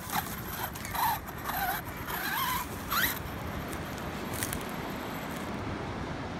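Electric motor of a Redcat MT8E BE6S 1/8-scale RC monster truck whining in short throttle bursts, its pitch sweeping quickly up and down, four times in the first three seconds. After that only wind and surf noise remain.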